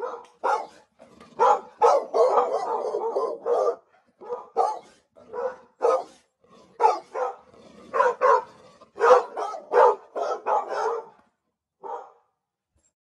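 A dog barking over and over in an irregular run of short barks, stopping about eleven seconds in, with one last bark a second later.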